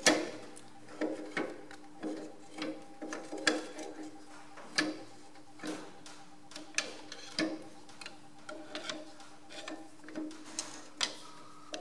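Irregular metal clicks and taps as the Ferguson FE35's top link rocker and draft control spring assembly are worked by hand and with a flat steel bar, checking for free play; the sharpest click comes right at the start. A faint steady hum runs underneath.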